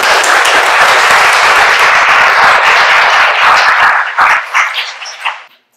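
Audience applauding, a dense patter of many hands clapping that thins to a few scattered claps after about four seconds and stops shortly before the end.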